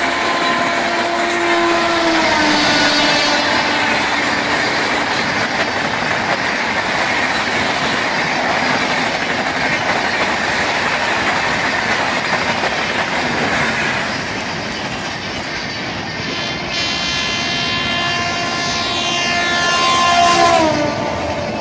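Diesel locomotive horn sounding as a train passes, its chord dropping in pitch about two seconds in, then the steady rumble and wheel clatter of a freight train going by. Near the end a second horn sounds and slides down in pitch as it passes.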